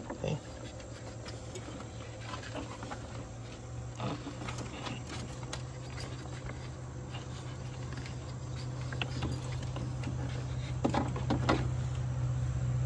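A steady low machine hum that grows louder near the end, under faint rubbing and light knocks as a new ribbed serpentine belt is fed by hand over the engine's pulleys.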